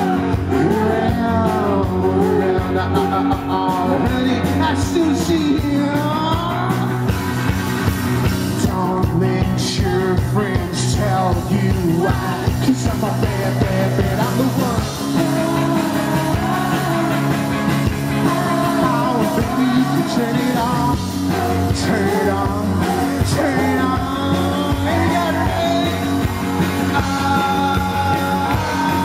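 Live rock band playing a song: a man's lead vocal over electric guitar, bass guitar and drums, with a woman singing along at her microphone.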